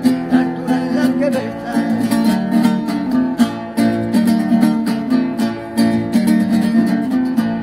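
Acoustic guitar strummed in a steady, brisk rhythm, chords repeating without a break.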